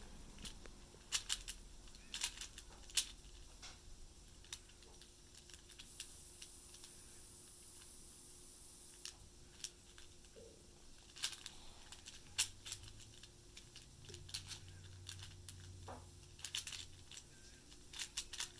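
Plastic clicks and clacks of a 4x4 Rubik's cube being turned by hand, coming in irregular clusters of quick turns with pauses between.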